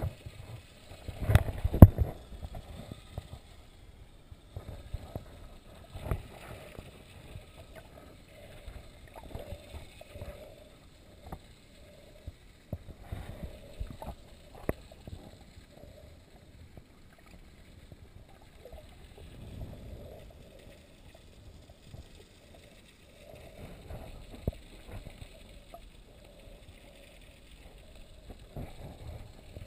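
Muffled water movement recorded underwater as a snorkeler swims: irregular swishes and dull thumps on the camera, loudest about a second or two in.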